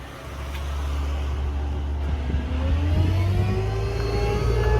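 Ford F550's 6.8-litre V10 gas engine speeding up as the PTO is engaged to drive the hydraulic system. A whine climbs in pitch and levels off near the end.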